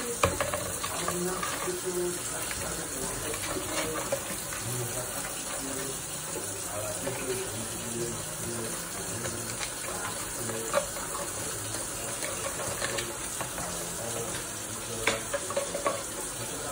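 A steady rushing noise, with scattered light knocks and scrapes as a white-bellied caique wrestles a cardboard paper towel tube on the countertop.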